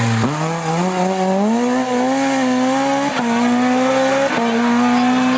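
Rally car engine accelerating away under load, its pitch climbing steadily, with two quick upshifts about three seconds and four and a quarter seconds in.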